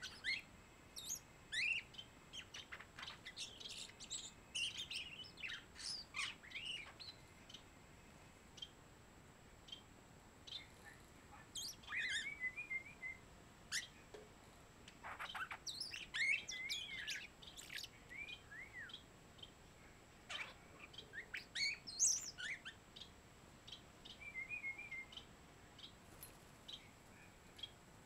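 Young European starling singing its rambling song: a jumble of whistles, quick rising and falling glides, clicks and short rattles, coming in bursts with short pauses between.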